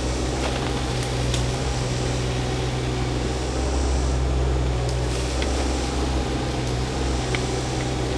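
Shantui mini excavator's engine running steadily at work, a low, even hum with a few faint clicks and knocks over it.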